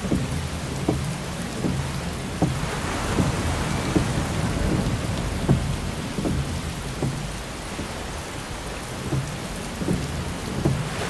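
Heavy rain pelting a car's windshield, with a steady low rumble underneath. Short soft knocks come about every three-quarters of a second, in the rhythm of windshield wipers sweeping.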